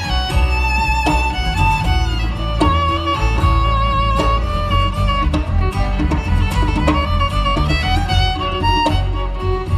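Live acoustic string band playing an instrumental break: a fiddle carries a melody with vibrato over a strummed acoustic guitar and upright bass.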